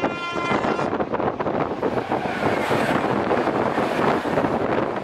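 Express passenger train running at speed, heard from an open coach door: a steady rumble and fine clatter of the wheels on the rails, with wind buffeting the microphone. A high-pitched whine is heard in the first second and then fades out.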